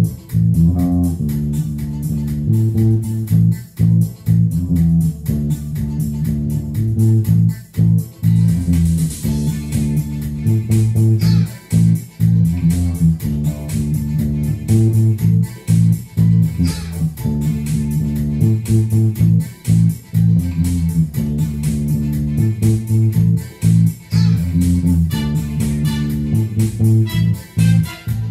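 Instrumental band music: a bass guitar plays a loud, repeating line under guitar.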